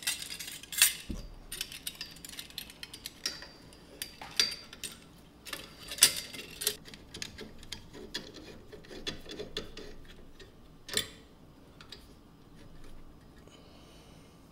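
Metal worm-gear hose clamps and a steel mounting bracket being handled and fitted together: irregular light metallic clicks and clinks, the sharpest about a second in, about four and six seconds in, and near eleven seconds in.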